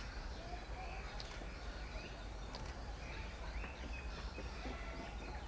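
Outdoor ambience: a steady low rumble with scattered faint bird chirps.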